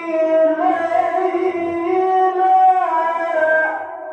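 Qur'an recitation (tilawah) by a high-voiced male qari, amplified through a microphone, holding long, wavering melodic notes that step in pitch. The phrase fades out near the end.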